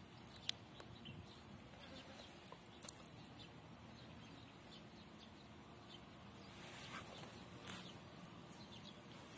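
Faint outdoor background with three short, light clicks spread through it and a soft swell of hiss near the end.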